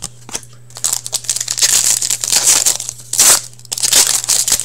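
Wrapper of a hockey trading card pack crinkling and tearing as it is handled and ripped open by hand, with sharper crackles about three and four seconds in.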